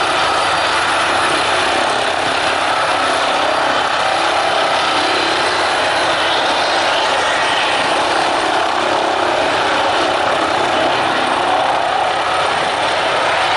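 Airbus H145 D3 (ACH145) five-bladed helicopter hovering low. Its twin turbine engines and fenestron tail rotor give a steady whine over the rotor noise.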